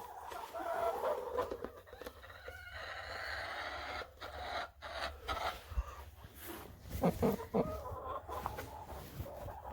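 Hens clucking on and off, with a few sharp knocks or bumps about seven seconds in.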